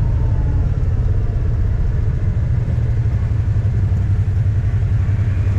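Off-road vehicle engine running steadily as it drives, a loud low rumble.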